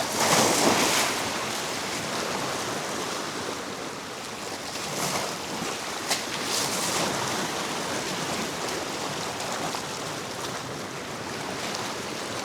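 Surf washing against the rocks of a jetty, with wind on the microphone; louder rushes of water come at the start and again around five and six and a half seconds in, with one sharp click just after six seconds.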